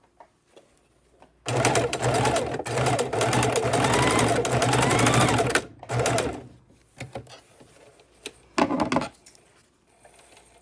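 Electric sewing machine stitching in one run of about four seconds, then two short bursts, sewing the ends of a piece of elastic together. A few light clicks come before it starts.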